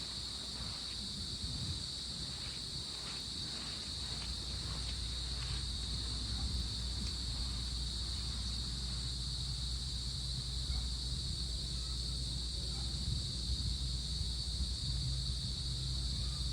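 Crickets calling in a steady, unbroken high-pitched chorus, over a low rush of wind and lapping lake water.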